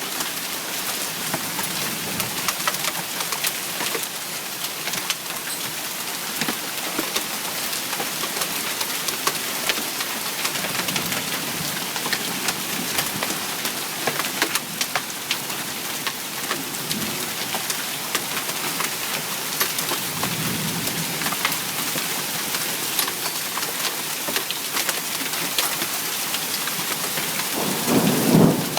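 Hail pelting down with rain: a dense steady hiss dotted with countless sharp ticks of hailstones striking hard surfaces. A louder low rumble comes near the end.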